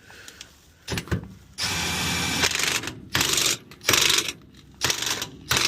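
Impact wrench rattling in several bursts as it runs the bottom bolt of a new rear shock absorber up tight: one long burst of about a second, then shorter bursts.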